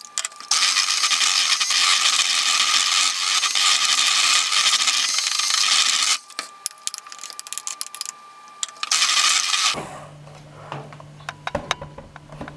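Electric hand mixer beating pancake batter in a glass bowl, its motor whining steadily. It stops about six seconds in, gives a few short bursts, runs again and stops near ten seconds, then a few light clicks and taps follow.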